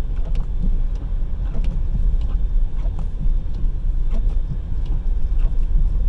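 Road and engine noise inside a car's cabin while driving on a snow-packed road: a steady low rumble with faint ticks scattered through it.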